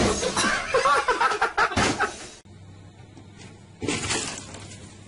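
A framed picture falling from the wall onto a drum kit: a loud crashing clatter of repeated hits, with people's voices over it. It cuts off suddenly, leaving a quieter low hum and one brief rustling noise near the end.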